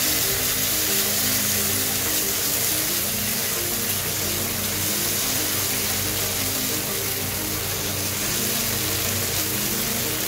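Masala paste with chopped tomatoes frying in oil in a nonstick pan, sizzling steadily as it is stirred with a spatula while it sautés until the tomatoes turn mushy. Background music plays underneath.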